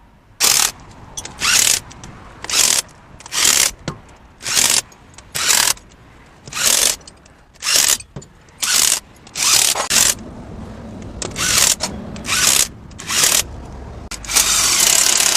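A power wrench running in short bursts about once a second, about fourteen times, with one longer run near the end, driving in the bolts of a three-wheeler gearbox cover.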